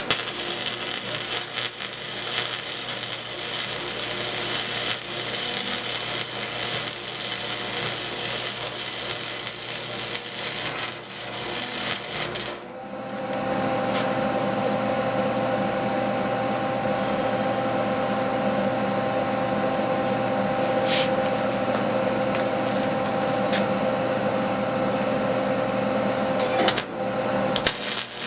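Electric arc welding on a steel table: a continuous crackling sizzle that breaks off about halfway through, then starts again with a steady hum under it until near the end.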